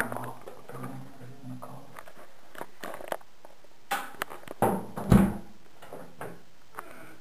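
Knocks and rubbing from a camera being handled with the lens covered, with a faint low hum early on, a cluster of knocks about four seconds in and one heavy thump just after five seconds.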